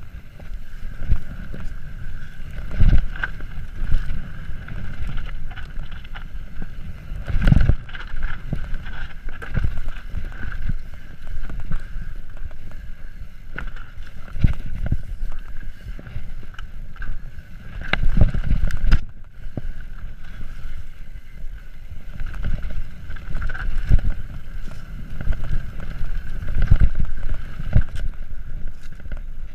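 Wind buffeting the microphone and the low rumble of a mountain bike riding down a rough dirt singletrack, with frequent knocks and thumps as the wheels hit bumps and roots, the biggest about seven and eighteen seconds in.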